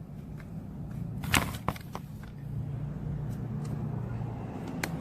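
Sharp clicks as parts of a 2004 Hyundai Tiburon replacement door handle are pressed and snapped into place: a loud snap just over a second in, another right after, and a third near the end, over a steady low hum.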